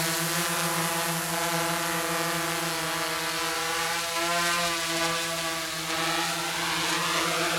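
Quadcopter with four DYS D4215 650 kv pancake brushless motors spinning 10-inch APC propellers, hovering low and descending to land: a steady buzzing whir whose pitch wavers slightly as the throttle is adjusted.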